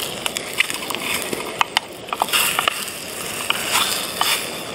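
A small spatula scraping and prodding sausages that are sticking to a small non-stick pan over a gas stove, against a steady sizzle and hiss, with sharp crackles and pops from a wood campfire.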